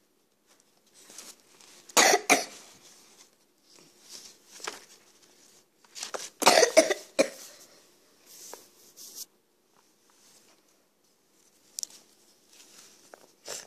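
A person coughing in two bouts, a short double cough about two seconds in and a longer run of coughs about six seconds in, with fainter rustling between.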